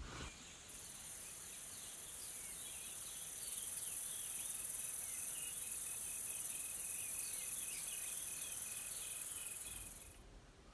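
A chorus of insects keeps up a steady, high-pitched trilling drone, with faint quick chirps and a rapid pulsing call beneath it. It swells a little over the first few seconds and cuts off suddenly near the end.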